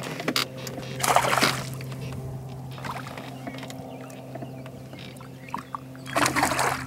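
Water splashing in two bursts, about a second in and near the end, as a hooked fish thrashes at the surface, over a steady low hum.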